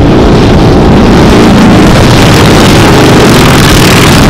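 A group of motorcycles riding by on a highway, their engines running loud and steady.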